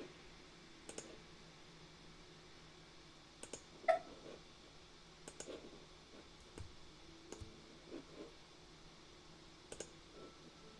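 Computer mouse clicking at irregular intervals, scattered single clicks, the loudest about four seconds in, over a faint steady room hum.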